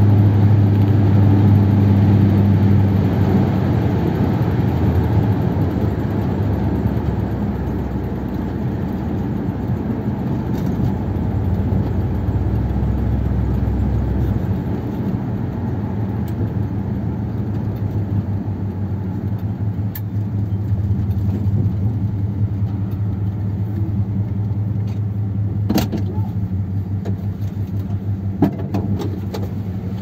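1957 Ford Thunderbird's V8 running as the car is driven, heard from inside the cabin with road noise, the engine hum strongest at the start. A few sharp clicks near the end.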